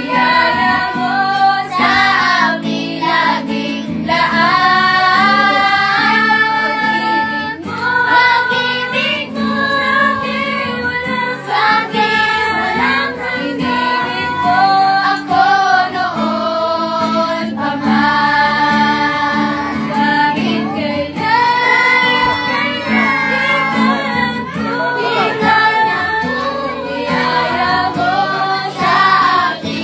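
A group of children and young women singing a Tagalog worship song together in unison, accompanied by a strummed acoustic guitar.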